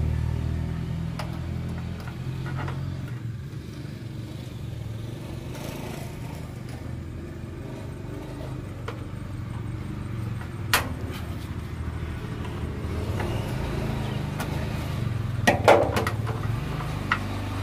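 An engine idling steadily as a low hum, with a sharp metallic click about eleven seconds in and a short run of clicks near the end as the retaining clip and fuel hose fitting on a truck's fuel tank are worked loose.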